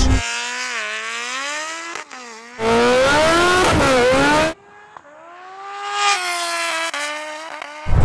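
High-revving engines accelerating hard through the gears in a drag race. Each time the pitch climbs, it drops sharply at an upshift, then climbs again. The sound switches abruptly twice, with a louder stretch in the middle.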